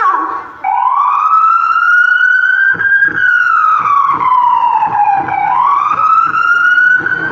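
Recorded emergency-vehicle siren played over the stage loudspeakers: a slow wail that starts just under a second in, rises, falls away and rises again.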